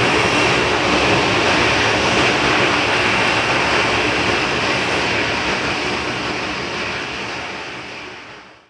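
Jet noise from an Airbus A380's four Engine Alliance GP7200 turbofans at takeoff power, a loud, dense rushing sound as the plane lifts off and climbs away. The sound fades away over the last couple of seconds.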